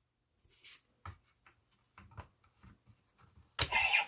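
Soft scrapes and small clicks of plastic toy belt parts and cards being handled, then a sudden much louder sound starting near the end.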